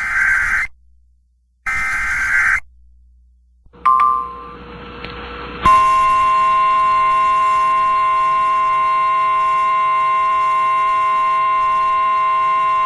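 NOAA Weather Radio alert sequence: two short bursts of EAS SAME header data tones about a second apart, a brief electronic beep with hiss, then the 1050 Hz warning alarm tone, a steady loud tone that comes on suddenly about six seconds in and holds. It signals that a new warning broadcast is about to follow.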